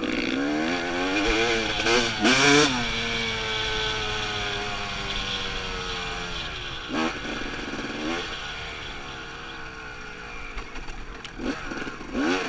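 Dirt bike engine under way, heard from the rider's seat: a few sharp revs early on, the loudest about two seconds in, then the engine note sinks slowly off the throttle for several seconds, followed by short blips of throttle near the end.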